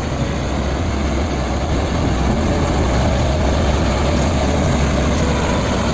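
Diesel engine of a Hino 500 concrete mixer truck running with a steady low rumble as the truck moves close by, growing slightly louder about two seconds in.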